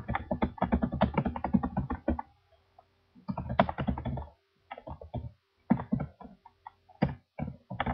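Typing on a computer keyboard: quick runs of keystrokes with short pauses, thinning to scattered single keystrokes in the second half.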